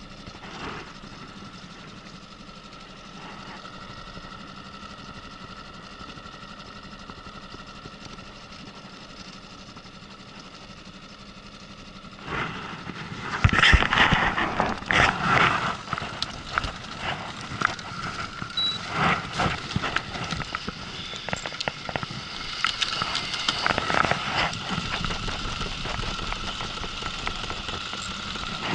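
Boat motor running steadily with a thin whine. About halfway through, a sudden clatter, a sharp knock and then a run of clicks and knocks as a trout strikes the trolling rig and the rod is taken up and reeled in on a baitcasting reel.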